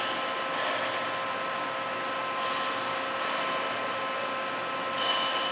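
Steady machine whir and hum with several constant tones from a powered-up Daewoo ACE-H100 CNC horizontal machining center idling. A higher whine swells briefly about five seconds in.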